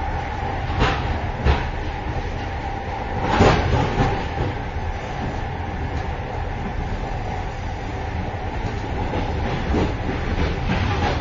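A moving train heard from inside the vestibule between cars: a steady low rumble of wheels and running gear, with a faint steady hum. Sharp metallic clatters and knocks come through it, the loudest and longest about three and a half seconds in, with a few more near the end.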